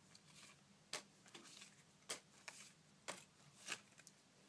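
Fleer Metal basketball trading cards being handled and flipped through by hand: a few faint, sharp clicks and slides of card stock, about five spread across the few seconds.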